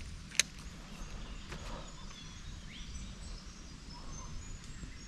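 Quiet creekside ambience: scattered faint bird chirps over a low rumble, with one sharp click about half a second in.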